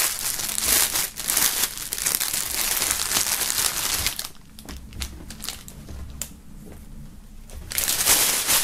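A thin clear plastic bag crinkling and rustling as a folded jersey is pulled out of it. After about four seconds it goes quieter, and a short loud rustle comes again near the end.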